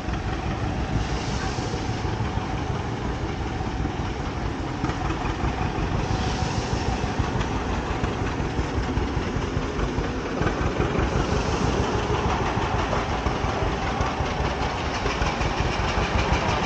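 A steam-powered crane's steam engine running, a steady mechanical noise that grows louder toward the end.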